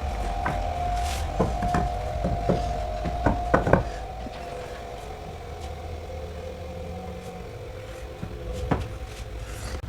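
A machine running with a steady two-pitched hum and a low rumble. A quick run of sharp knocks comes in the first few seconds, and one more comes near the end.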